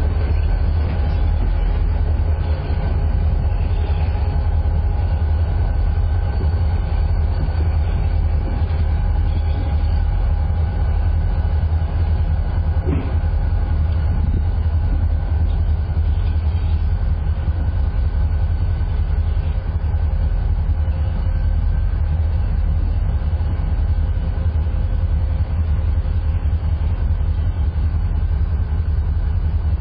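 Canadian Pacific diesel-electric locomotives moving a work train slowly away: a steady low rumble with a few faint, thin steady whining tones above it.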